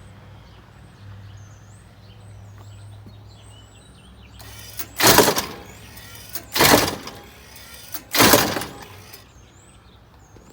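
A 20-gauge shotgun fired three times in quick succession, about a second and a half apart, each shot ringing out briefly. Birds chirp before the shots.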